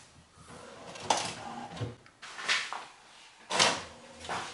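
HP Photosmart 3210 all-in-one inkjet printer running its print mechanism while it prints a self-test diagnostic page: a series of separate mechanical clunks and whirs, the loudest about three and a half seconds in.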